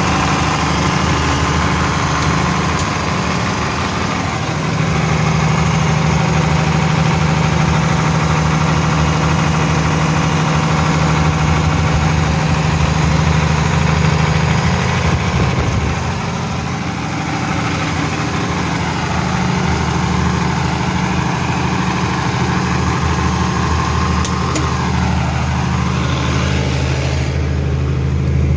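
Generator set's engine running at a steady speed.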